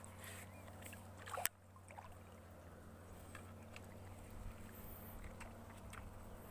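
Faint water sloshing and trickling, with a single sharp click about a second and a half in and low rumbling building near the end.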